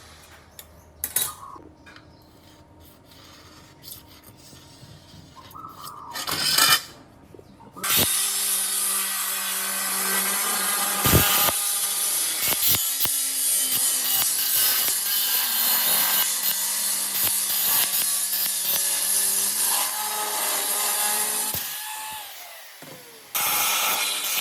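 A power tool cutting or working material with a loud, harsh, continuous noise over a steady motor hum. It starts about eight seconds in, after a quieter stretch with a few knocks. It eases off briefly near the end, then picks up again.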